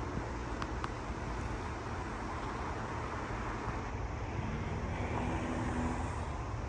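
Downtown street traffic: a steady hum of passing cars, with one vehicle's engine note standing out from about four seconds in.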